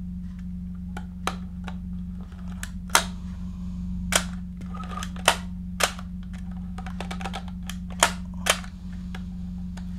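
The FED 4 rangefinder's cloth focal-plane shutter firing and its film-advance lever being wound: a series of sharp mechanical clicks, some in close pairs, with a brief faint ratcheting among them, as frames are advanced and fired after loading.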